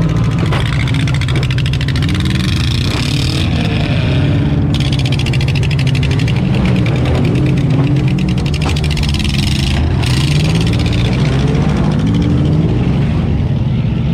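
Demolition derby car engines running and revving, their pitch repeatedly rising and falling, with a few brief knocks from the cars.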